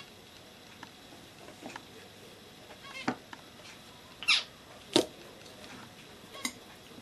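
Kitchen knife cutting a cake and scraping on a glass plate: a few short squeaks about three and four seconds in, the loudest sliding down in pitch. A sharp clink about five seconds in as the knife is set down on a china saucer, and a lighter click near the end.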